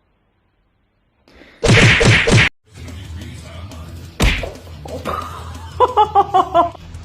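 A loud pitched cry lasting about a second, then a single sharp smack, then a quick run of about six short pitched calls near the end.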